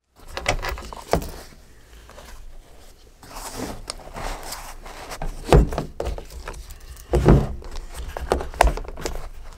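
Gear being handled on a pickup's ribbed plastic bed liner: a handgun and hard plastic holster on a chest rig clicking, scraping and knocking. There are several sharp clicks, with the heaviest knocks about five and a half and seven seconds in.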